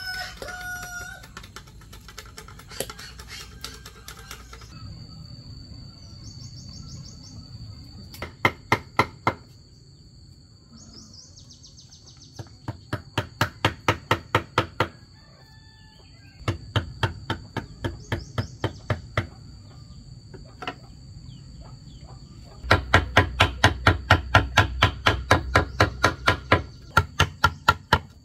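A mallet driving a chisel into green bamboo to cut slots, in four runs of quick strikes at about five a second, the last and longest near the end. A rooster crows at the very start.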